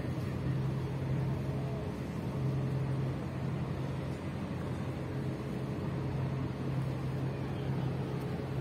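Steady low drone of a boat's engine over the wash of water.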